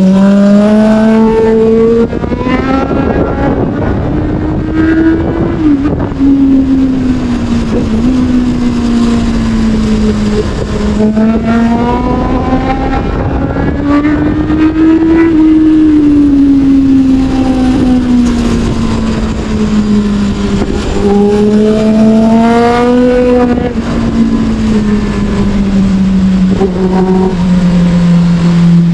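Sportbike engine pulling through the gears, its pitch climbing and dropping back several times as the rider accelerates and eases off, with wind rumble on the microphone.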